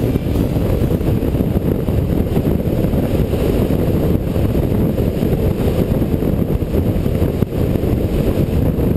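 Suzuki DR350 single-cylinder four-stroke dual-sport motorcycle running at steady road speed, heard from a bike-mounted camera, its engine blended with wind rumble on the microphone into a steady low roar.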